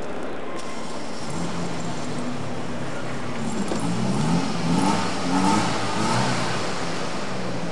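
A car engine running, with a steady low hum, then blipped several times in a row, each rev a short rise in pitch.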